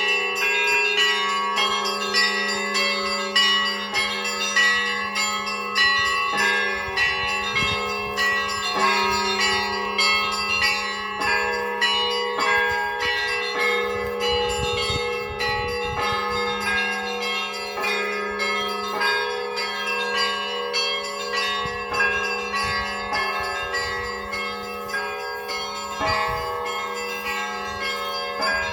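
Russian Orthodox church bells being rung: a quick, continuous pattern of strikes on several smaller bells over the steady hum of a deep bell, with stronger accents about once a second.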